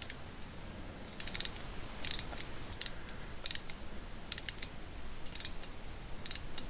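Hand tap in a T-handle tap wrench being turned into a drilled-out broken stud in an air-cooled VW cylinder head, cutting out the stud's remains. It gives short clusters of sharp metallic clicks roughly once a second.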